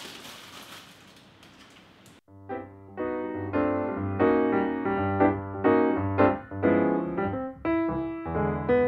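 Background piano music with a run of struck notes and chords, starting about two seconds in after a short stretch of faint noise.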